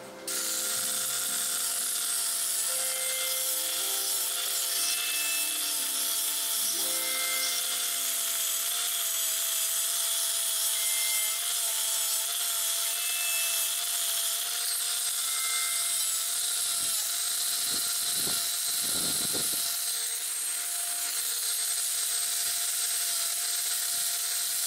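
Small right-angle power tool with a sanding disc running at steady speed, grinding down the edge of a thin wooden hull plank: a steady motor whine over an abrasive hiss. It starts just after the opening and dips briefly about two-thirds of the way through.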